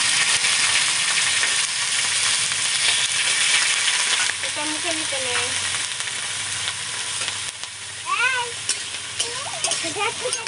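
Cauliflower and potato pieces frying in hot oil in an aluminium wok, sizzling loudly as they are stirred with a metal spatula; the sizzle eases off a little after about four seconds.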